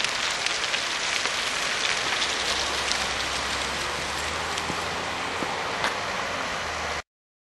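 Steady outdoor street hiss on the camera microphone, with a few light crackles and a faint low hum, cutting off suddenly about seven seconds in.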